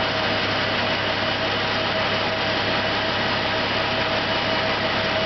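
Homemade PTO-driven air compressor running steadily: a belt-driven 42 CFM Eaton two-stage-type pump turned through roller chain and pulleys by a farm tractor's power take-off, with a steady hum and the tractor's engine running underneath.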